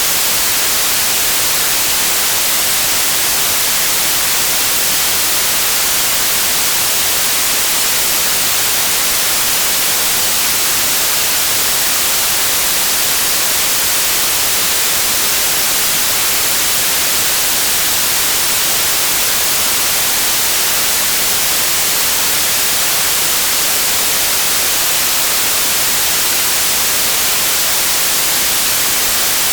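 Steady white noise like the static of an untuned television: an even, constant hiss weighted toward the high end, unbroken throughout.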